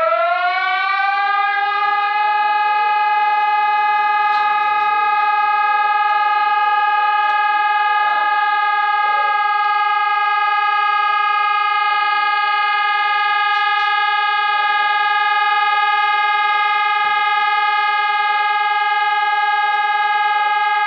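Outdoor civil-defense warning siren winding up, rising in pitch over the first two seconds, then holding one steady tone.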